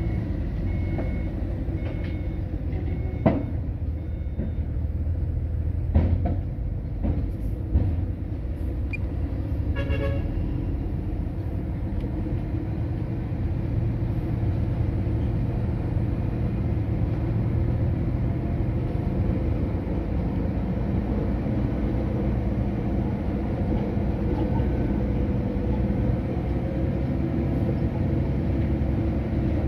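Heavy diesel earthmoving machinery, a bulldozer and dump trucks, running steadily under load. A few sharp metallic clanks come in the first eight seconds and a brief tone about ten seconds in. Short high beeps repeat near the start.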